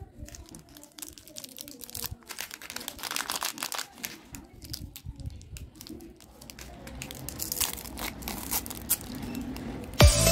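Shiny plastic chocolate-bar and candy-packet wrappers crinkling and crackling as they are picked up and handled, in many short irregular crackles. Near the end a wrapper is pulled open, and electronic music with a steady beat comes in just before the end.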